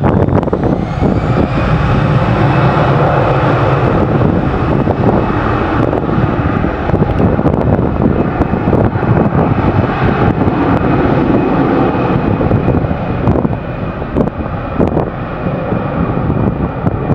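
Airbus A319 jet engines spooling up to takeoff thrust as the airliner starts its takeoff roll. The noise is loud and steady, with a high whine that rises in pitch over the first couple of seconds and then holds.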